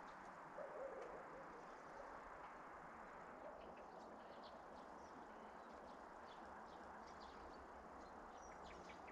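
Near silence: quiet countryside ambience, a faint steady hiss with small birds chirping faintly from about three seconds in.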